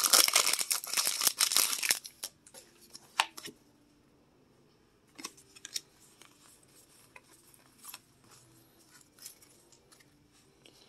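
Foil booster pack wrapper torn open and crinkled for about two seconds, then faint ticks and rustles of trading cards being handled.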